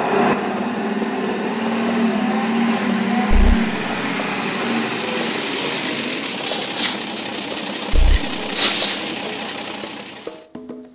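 Diesel engine of a Mercedes-Benz truck running steadily, with two short deep thuds and a brief loud hiss near the end.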